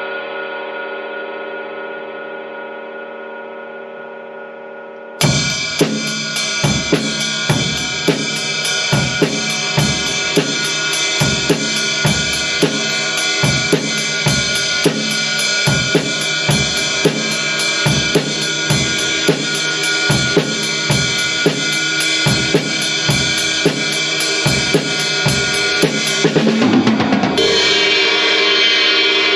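Paiste Sound Formula Reflector 20-inch Power Ride cymbal ringing out and fading. About five seconds in, a drum-kit groove starts, with even ride-cymbal strokes over kick and snare. Near the end a louder cymbal crash swells up.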